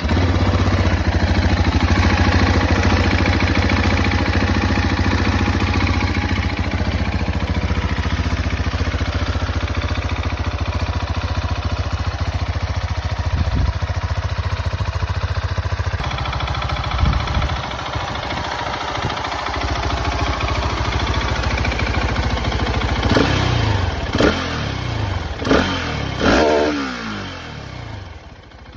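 Husqvarna 701's single-cylinder four-stroke engine on its stock exhaust, idling steadily just after starting, then revved in a few short throttle blips, each rising and falling in pitch, mostly in the last third.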